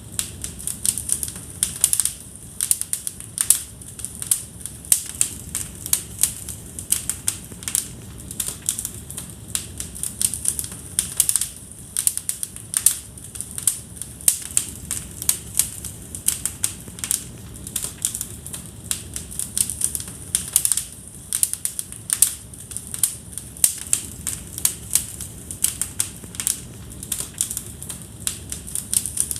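Wood fire crackling in a fireplace: dense, irregular sharp pops and snaps, several a second, over a low steady background of flame noise.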